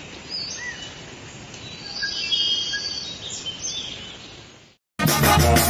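Forest ambience of birds chirping and calling over a steady hiss, which cuts off suddenly near the end. A moment later a Mexican wind band starts playing loudly, led by its brass.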